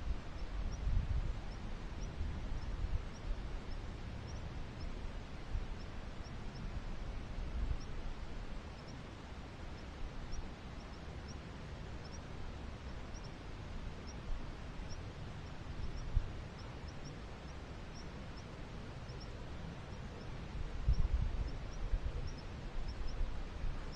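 Outdoor ambience through a trail camera's microphone: a steady hiss with low rumbles of wind on the microphone, strongest in the first few seconds and again near the end. A faint high tick repeats roughly every half second throughout.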